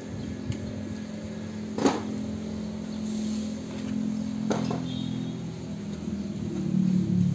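An engine runs steadily in the background as a low hum, with two sharp metallic knocks, about two seconds and four and a half seconds in, from tools or parts knocking on the steel differential carrier.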